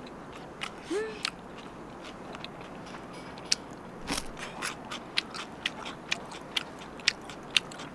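Crispy fried chicken batter crunching as it is bitten and chewed: a series of sharp crunches, about two a second through the second half, with a short hum from the eater about a second in.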